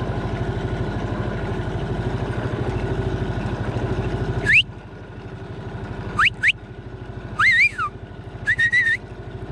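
Outboard motor of a small aluminium boat running steadily, then throttled back about four and a half seconds in. A person then gives four short whistles, some sliding up and one of three quick pips, calling a dog.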